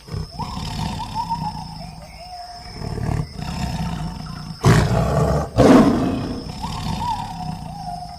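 Tiger growling and roaring, rough and rumbling, with two loudest roars back to back about halfway through. Crickets chirp steadily behind it.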